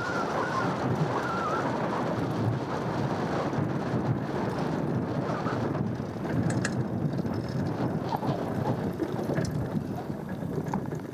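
Cube Analog hardtail mountain bike riding along a dirt trail: a steady rush of tyre and wind noise, with a few sharp ticks about six and a half seconds in.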